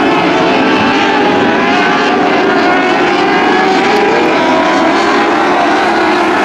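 A pack of dwarf race cars, their motorcycle engines running hard on a dirt oval. Several engine notes overlap and waver up and down as the cars lap.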